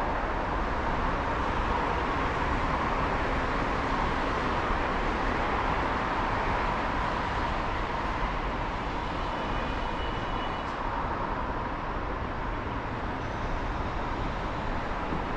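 Steady outdoor city ambience: a constant even hiss of distant road traffic, with a few faint high tones about two-thirds of the way through.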